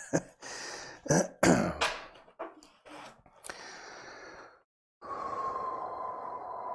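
A man coughing and clearing his throat several times in the first two seconds. After a brief dropout about five seconds in, a steady hiss with a faint, slowly falling tone begins.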